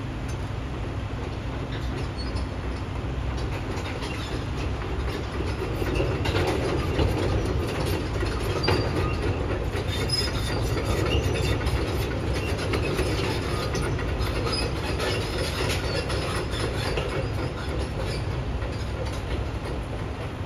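Heavy construction machinery working, a steady rumble with metallic squeals and clanks that grows louder through the middle.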